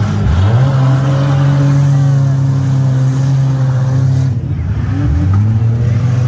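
Demolition derby car engine revving hard. It climbs sharply in pitch just after the start and holds high, drops away a little after four seconds, then climbs again about five seconds in.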